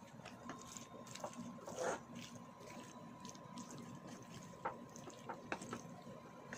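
Wooden spatula stirring saucy spaghetti carbonara in a nonstick frying pan: soft wet squishing of the creamy pasta with scattered light clicks of the utensil against the pan, the loudest about two seconds in.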